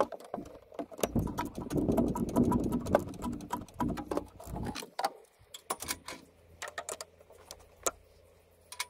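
Hand tools and metal parts being handled at a clutch master cylinder: a run of close clicks, knocks and rustling clatter in the first half, then scattered single clicks.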